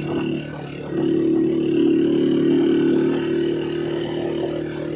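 Small motorcycle engine running as it is ridden, growing louder about a second in and holding there for a couple of seconds before easing slightly.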